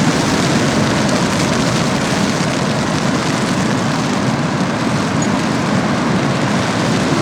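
Storm wind of about 40 km/h rushing steadily and buffeting the microphone with a constant low rumble.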